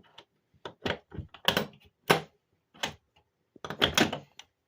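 Key working a newly installed RV entry door lock and latch: a series of irregular metallic clicks and clacks from the key, lock cylinder and latch, bunched together near the end.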